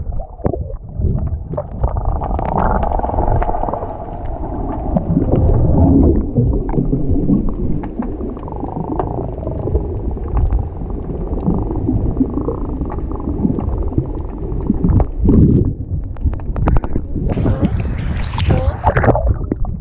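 Muffled underwater rumble and gurgling of water moving around a handheld action camera. Near the end the camera breaks the surface and the sound turns to splashing and sloshing water.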